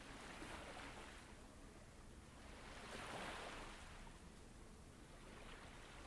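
Faint ocean waves washing in, swelling and ebbing twice; the second swell, about three seconds in, is the louder.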